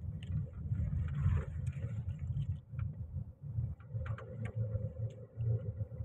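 Car interior noise while driving: a steady low engine and road rumble inside the cabin, with a few light clicks.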